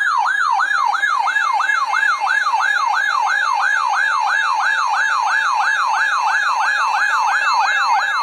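Weather alert radio's electronic alarm siren: a loud, fast warbling sweep up and down in pitch, about four sweeps a second, sounding for a newly received severe thunderstorm warning.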